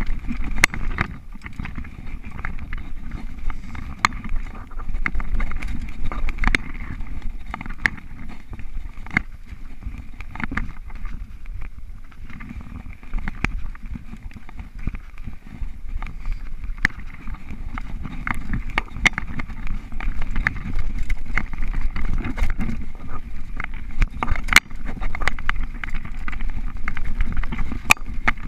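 Mountain bike ridden fast on a dirt singletrack, heard from the bike: a steady low rumble of tyres and wind, with frequent sharp clicks and clatters as the bike rattles over bumps.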